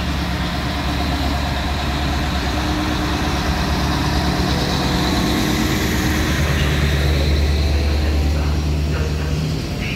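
Diesel locomotive's engine running with a steady low hum as it hauls a passenger train past, getting a little louder near the end and then easing off.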